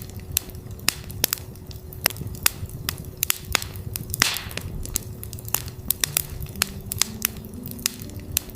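Campfire crackling with frequent sharp pops over a low rumble, with a brief hiss about four seconds in. Under it runs a steady low sine-like hum at 369 Hz, and soft synth notes come back in near the end.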